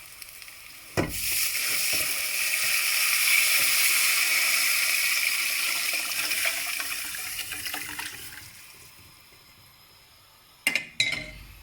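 Watery rasam mixture poured into a hot pan of oil and tempering: a sudden hissing sizzle starts about a second in, swells, then slowly dies away as the liquid settles. Two sharp knocks near the end.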